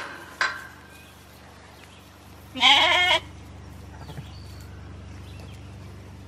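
A sheep bleats once, a single call of about half a second roughly two and a half seconds in.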